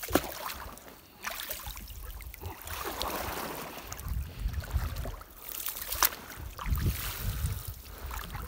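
Small rowing boat being worked while a floating gill net is hauled in: water splashing and sloshing, with sharp knocks against the boat near the start and about six seconds in. Wind rumbles on the microphone throughout.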